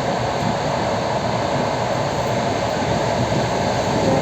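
Suburban electric multiple-unit train running at speed, heard from inside the carriage: a steady, even rumble of wheels on rails with running noise.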